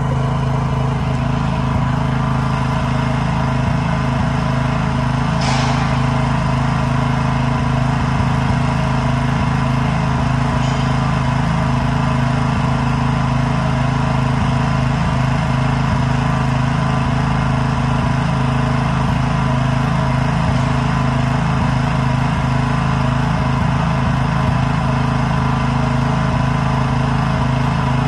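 A small engine running steadily at a constant speed, with a brief hiss about five and a half seconds in.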